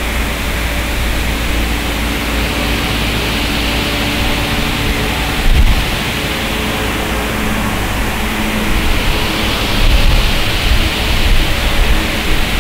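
Steady rushing noise with a low rumble, with a single thump about five and a half seconds in.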